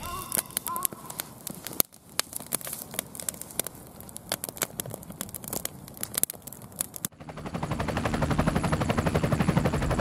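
Wood campfire of split firewood crackling and popping in sharp, irregular ticks. About seven seconds in it gives way abruptly to a louder, fast, even rattle of machine-gun fire.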